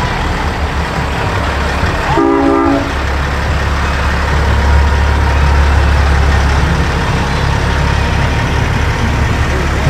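A short horn blast of several tones sounding together, about two seconds in, over a steady low rumble of passing parade traffic.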